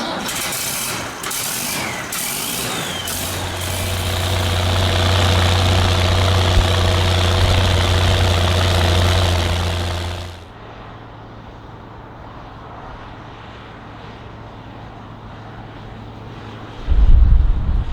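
Diesel engine of farm machinery running steadily, its revs and loudness rising a few seconds in, then cutting off abruptly to a much quieter engine sound. Near the end, heavy wind buffets the microphone.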